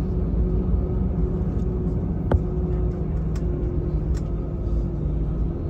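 Airbus A320's CFM56 engines heard inside the cabin: a steady rumble with several held tones over it. One sharp click about two seconds in, and two faint ticks a second or two later.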